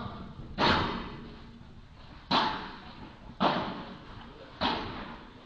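Padel rally: four sharp knocks about a second apart as the ball is hit back and forth with padel rackets, each echoing briefly in the indoor hall.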